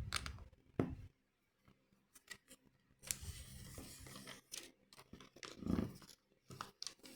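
Small plastic clicks and handling noises of LEGO pieces being fitted and tested for a secure hold, with a brief rustle about three seconds in.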